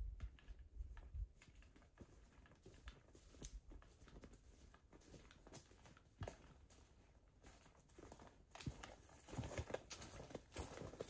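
Quiet crackles and small ticks of dry leaves and twigs, then footsteps crunching through leaf litter on the forest floor, getting louder over the last few seconds.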